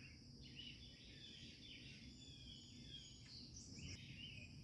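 Faint outdoor ambience: wild birds chirping and singing, short falling notes scattered throughout, over a steady high-pitched drone.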